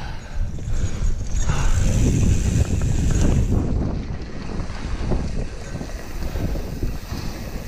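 Wind buffeting the microphone of a mountain biker's camera on a fast descent, over the rumble of knobby tyres rolling on a dirt singletrack trail. Loudest about two to three and a half seconds in.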